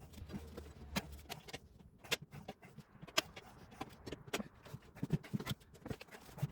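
Irregular clicks and knocks of hand work on a motorcycle wheel as the old tyre is worked off the rim with tyre levers.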